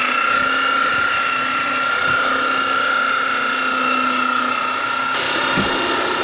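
1200 W electric belt sander running on plywood, a steady high-pitched whine with a lower hum underneath. A few low knocks near the end.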